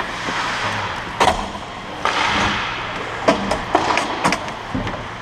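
Ice hockey rink sounds at the players' bench: a steady hiss of skating with about five sharp knocks of sticks and pucks against the boards.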